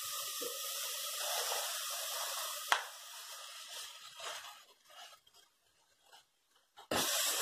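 Chopped onion and garlic sizzling in hot oil in a cast-iron pot, a steady hiss, with a sharp click a little under three seconds in; the hiss fades almost to nothing about two-thirds of the way through and comes back just before the end.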